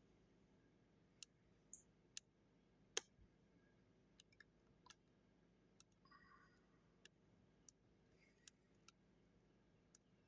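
Faint, irregular little clicks of a lock pick and turning tool working the pins inside a Goal Z lock, with one sharper click about three seconds in.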